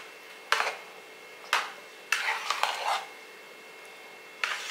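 A ladle scraping and knocking against the sides of an aluminium pressure-cooker pot as thick, nearly cooked ragi kali (finger millet porridge) is stirred: four short strokes, the third one longer.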